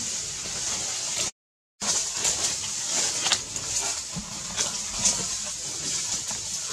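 Outdoor forest ambience: a steady high hiss with scattered light clicks and rustles, broken by a short dropout to dead silence about a second and a half in.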